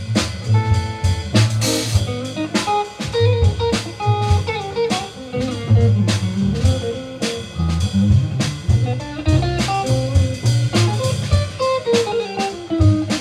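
Live band playing an instrumental passage: guitar solo over bass and drum kit, with a bluesy feel.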